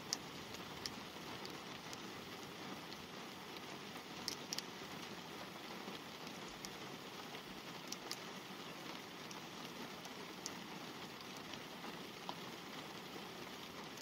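Light rain falling on a car's glass and roof, heard from inside the car: a steady hiss with scattered sharp taps of single drops, a few close together around the middle.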